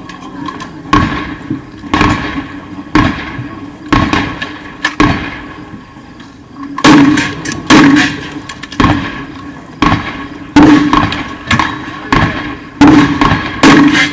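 A series of gunshots in a cowboy action shooting stage, fired at a steady pace of about one a second, each shot followed by a short echo. The shots grow louder about halfway through, and come a little faster near the end.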